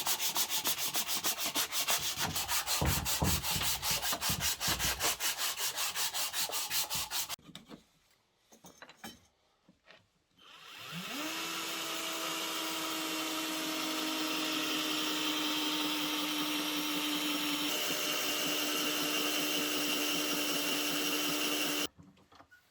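Sandpaper rubbed back and forth on wood in quick, even strokes for several seconds. Then an electric power tool spins up with a rising whine, runs at a steady pitch for about eleven seconds and cuts off suddenly.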